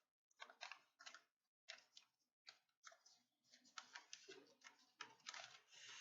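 Faint, irregular crackling and clicking of a plastic-and-cardboard blister pack being handled and pried open, with brief rustles.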